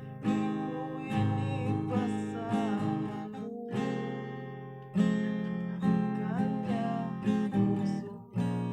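Acoustic guitar music: chords strummed with sharp attacks, each ringing on until the next.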